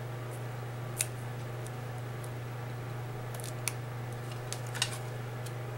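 A few sharp light clicks and taps from paper pieces and craft tools being handled on a desk, over a steady low hum.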